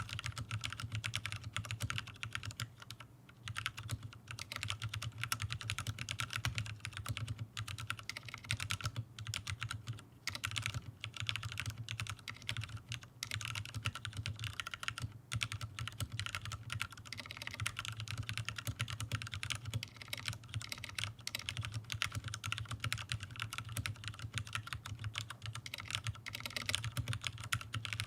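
Continuous fast typing on a Maker Scarlet TKL aluminium mechanical keyboard, top-mounted, with Cherry MX Black Hyperglide linear switches: a steady stream of keystroke clacks. The builder calls the top-mount sound pingy and hard.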